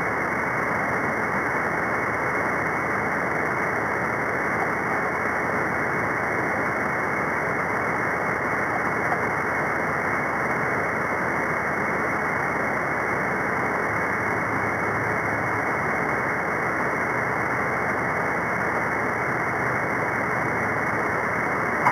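Steady static hiss from a shortwave receiver's speaker on the 11-metre band, with no station readable through it. The hiss is even and dull, cut off above the upper midrange by the receiver's narrow audio filter.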